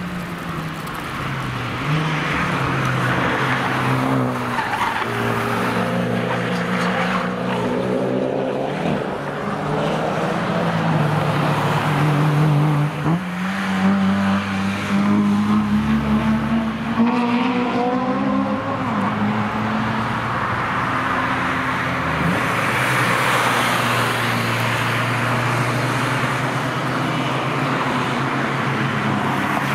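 Honda cars driving past at speed on a race track, one after another. Their engines rise and fall in pitch as they accelerate, change gear and go by.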